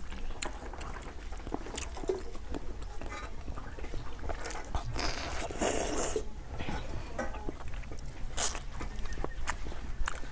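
Close-up mouth sounds of eating rice and fish curry by hand: chewing and small wet clicks and smacks, scattered irregularly, with a longer rushing sound about five seconds in.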